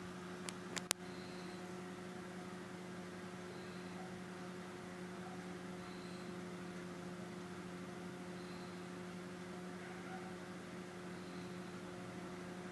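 Steady low electrical hum over faint hiss, with three sharp clicks about a second in.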